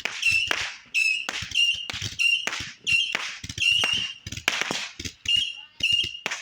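Missile-type firework firing shot after shot: sharp pops about two to three a second, most of them followed by a short, high, steady whistle.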